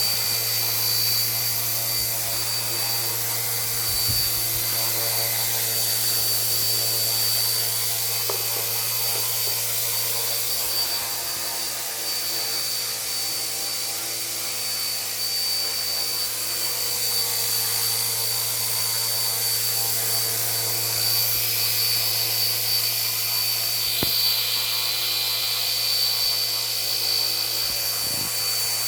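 RC-ERA C032 small electric radio-controlled helicopter hovering, its rotors giving a steady low buzz over a constant high motor whine.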